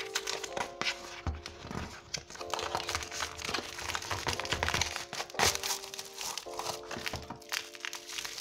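Paperboard box flaps and bubble-wrap packaging crinkling and rustling in irregular sharp crackles as they are handled and unwrapped, over background music with held notes of a simple melody.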